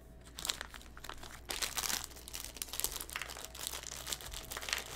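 Foil candy wrapper crinkling as it is handled, an irregular crackle.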